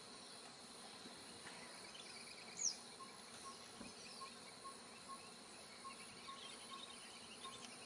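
Insect and cricket chorus in a tropical forest clearing: a steady faint hiss and high trill with a regular high pip a couple of times a second. About two and a half seconds in there is one short, sharp falling whistle, the loudest sound.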